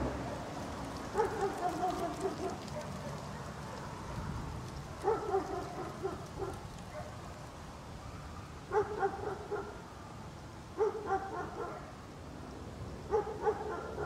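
Angry guard dog barking in bouts of a few quick barks, five bouts spaced two to four seconds apart.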